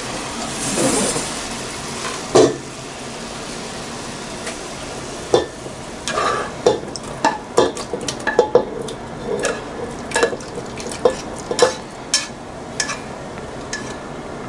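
A utensil scraping and tapping against a nonstick frying pan as browned chicken pieces are pushed out into a stainless steel pot: a short sizzle near the start, a sharp clank about two seconds in, then many quick scrapes and clicks from about five seconds in.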